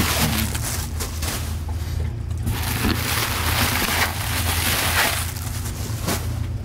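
Rustling and crinkling of a cardboard box and its packing around a new anchor windlass, in irregular spells, over a steady low rumble.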